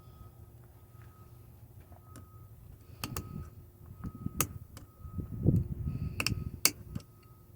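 A metal hand tool clicking, knocking and scraping against a nail stuck in a big-truck tire while the nail is pried at. The clicks begin about three seconds in and come in an irregular series, busiest near the end.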